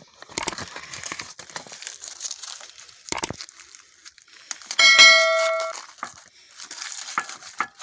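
Crinkling and tearing of packaging as piston rings are unwrapped, with scattered clicks and a sharp knock. About five seconds in, a piece of metal rings out with a loud, clear ding that dies away within a second.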